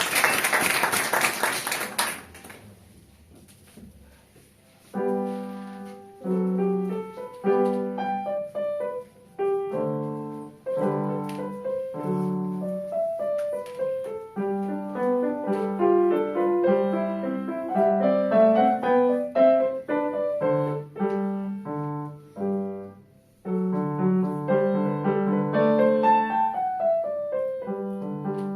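Applause that stops about two seconds in, then a short hush, then solo piano starting a new piece about five seconds in and playing on in a steady run of notes.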